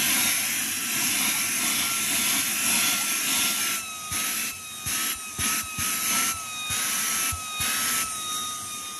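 Jimmy cordless handheld vacuum cleaner running on car seat upholstery: a steady high motor whine over a rush of suction air. From about four seconds in, the rush dips and comes back again and again, and the whine wavers slightly.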